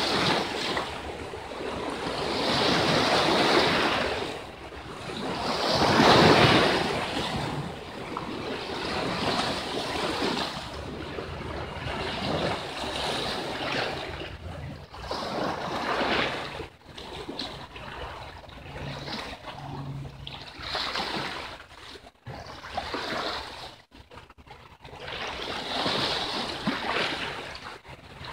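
Sea waves washing and breaking against shore rocks, swelling and falling every few seconds, loudest about six seconds in.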